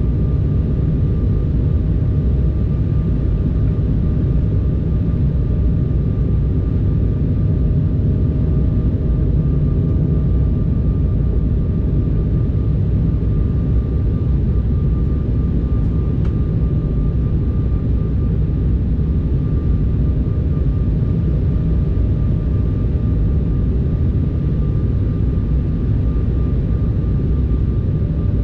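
Steady cabin noise of a regional jet airliner: engine hum and rushing air with a faint steady whine running through it.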